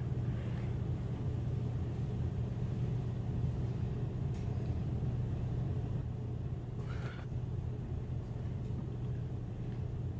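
Steady low rumble that starts abruptly and runs on evenly, with a couple of faint brief higher sounds partway through.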